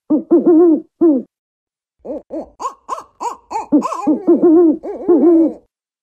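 African wood owl hooting: short hoots that rise and fall in pitch, a brief run of them near the start and then a longer, quicker series from about two seconds in that stops shortly before the end.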